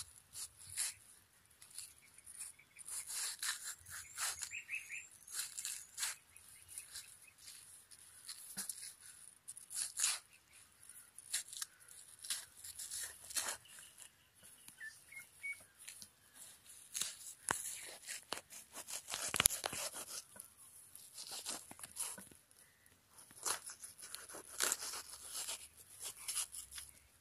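A large knife cutting and scraping into the flesh of a halved watermelon in short, irregular strokes.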